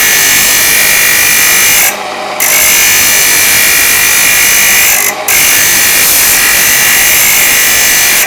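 Thin cut-off wheel on a grinder grinding the inside of a steel dado nicker blade: a loud, steady grinding hiss that breaks off briefly twice, about two and five seconds in.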